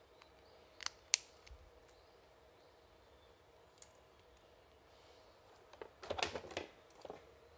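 Small clicks and taps from hands working a small coil-over shock absorber: two sharp clicks about a second in, then a quick cluster of clicks and light rattles around six seconds in.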